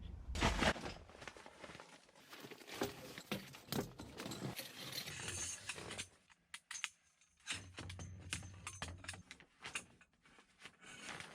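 Rustling, clicks and light clatter of things being handled, dropping away briefly about six seconds in.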